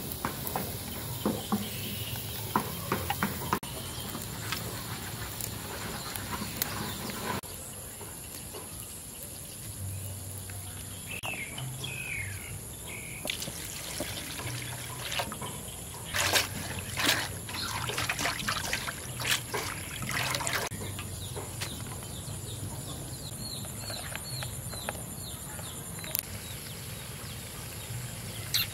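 Water poured from a jug into a metal bowl of leafy greens, splashing for several seconds midway. Before that, leaves are handled and dropped into the bowl with light taps, and birds chirp a few times in the background.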